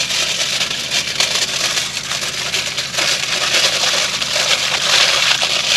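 Aluminium foil crinkling and rustling as it is folded and wrapped tightly around a corn cob, a continuous crackle that gets loudest about five seconds in.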